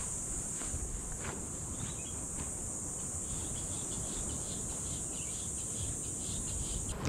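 Steady high-pitched drone of insects that cuts off suddenly near the end, with a few faint footsteps on a dirt path in the first couple of seconds.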